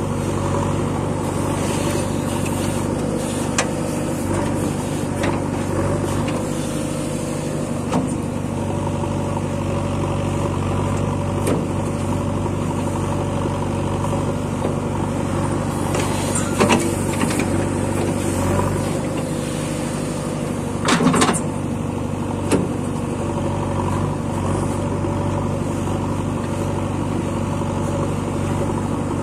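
Diesel engine of a JCB 3DX backhoe loader running steadily while the backhoe arm digs. A few sharp knocks are scattered through it, the loudest cluster about two-thirds of the way in.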